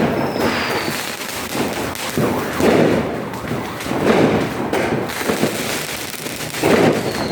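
Aerial fireworks going off: a string of deep booms at uneven intervals of about a second, each trailing off with a rumble, and a faint falling whistle early on and again near the end.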